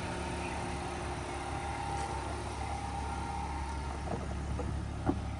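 Haval H6 HEV hybrid SUV moving slowly past: a steady low hum with a faint steady higher tone over it, and one short click about five seconds in.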